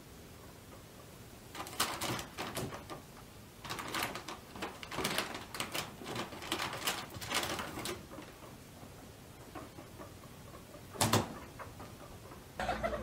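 Crackly paper rustling as small pet rodents scurry in and out of a paper bag and over the pen's bedding, in a short burst about two seconds in and a longer stretch from about four to eight seconds. One sharp knock comes about eleven seconds in.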